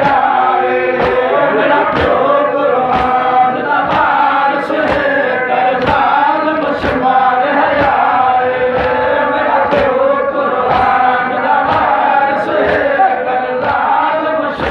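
A crowd of men chanting a mourning lament (noha) in unison. Hand slaps on the chest (matam) land in rhythm about once a second.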